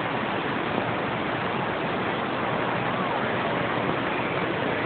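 Steady hiss of CB radio static from the receiver's speaker, with faint, distant voices coming weakly through it: a weak long-distance skip signal under the band noise.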